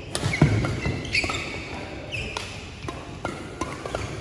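Badminton rally: sharp cracks of rackets striking the shuttlecock in quick succession, with court shoes squeaking briefly on the floor a few times.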